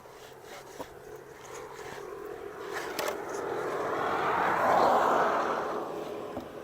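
A vehicle passing by: a steady noise that swells to a peak about five seconds in and then fades, with a sharp click near the middle.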